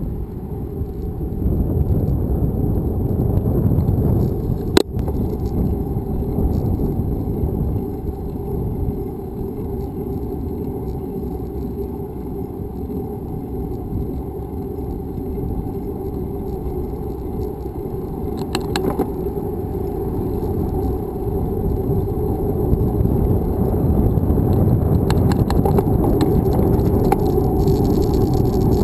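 Steady rumble of wind and road noise on a bicycle-mounted action camera riding along a street, with light rattles. There is a sharp knock about five seconds in, and the rumble grows louder over the last few seconds.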